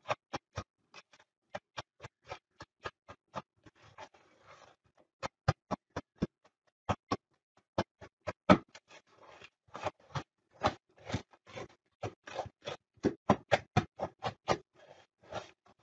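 Wooden spoon stirring buttered graham cracker crumbs in a plastic mixing bowl: a quick, irregular run of taps and scrapes as the spoon knocks against the bowl, with a few short pauses.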